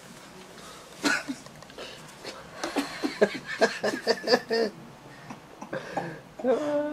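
A person coughing about a second in, then a run of laughter in quick, rapid bursts of voice.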